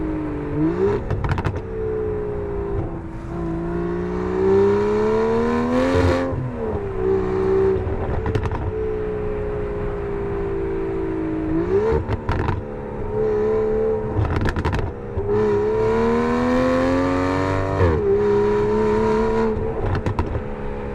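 Aston Martin DBS Superleggera's twin-turbo V12 through a Quicksilver Tian sport exhaust, heard from the back of the car as it pulls hard through the gears: the pitch climbs for a few seconds and falls at each upshift, twice, with several short sharp cracks along the way.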